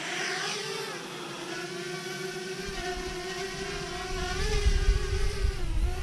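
Parrot Bebop quadcopter's four motors and propellers spinning up as it lifts off, a rising whine with several tones that then settles to a steady hum. A low rumble joins it about two and a half seconds in.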